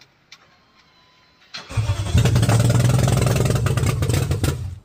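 V8 engine in a Fiat Multipla cranking and catching about a second and a half in, running roughly for about three seconds, then cutting out. It runs badly because it is being started without any engine map.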